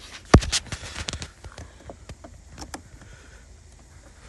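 Plastic clicks and knocks of a car fuse box's clips and connectors being worked loose by hand. One sharp, loud click comes about a third of a second in, then a scatter of lighter clicks over the next couple of seconds.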